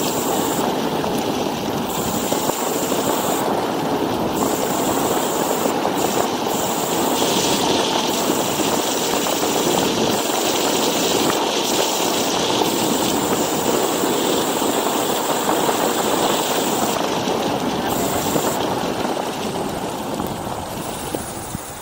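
Steady rushing wind and road noise while riding a Kaabo Wolf Warrior electric scooter at speed, with wind on the microphone; it eases a little near the end.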